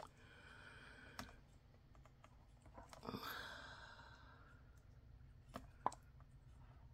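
Quiet handling of a squirt-top plastic bottle of epoxy resin as it is squeezed into a measuring cup: a few light plastic clicks and two short soft hisses, about a second in and again about three seconds in.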